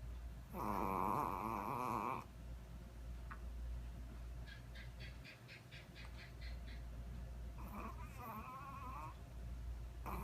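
A sleeping pet snoring: two long, wavering snores several seconds apart, with a quick run of faint ticks between them.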